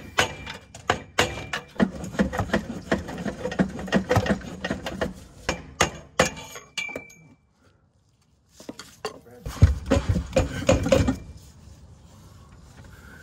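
Rapid metallic clinks and knocks of tools and parts being worked under a car during transmission removal. The sound breaks off for about a second past the middle, then returns as a dense run of heavier knocking before dying down near the end.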